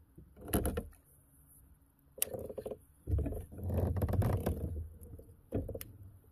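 Handling noise in a kayak as a baitcasting rod and reel are picked up and worked: a burst of rustling, a sharp click, then a longer stretch of low rumbling knocks, and another short burst near the end.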